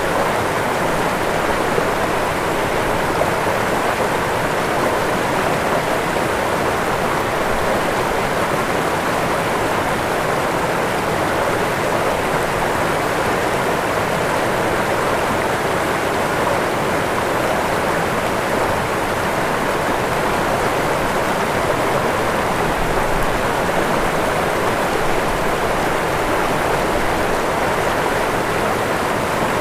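Waterfall with water rushing and splashing in a steady, unbroken roar.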